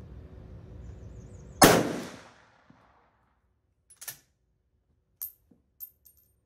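A single rifle shot from a Swiss K11 carbine in 7.5×55mm Swiss, about a second and a half in, with a ringing tail that dies away over about a second. A few light clicks follow.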